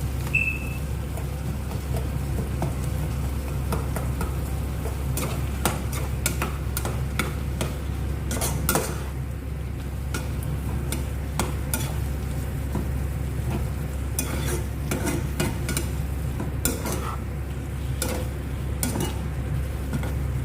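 A cooking utensil stirring mushrooms and bell peppers in a pan, giving many short, irregular clicks and scrapes against the pan over a low steady hum.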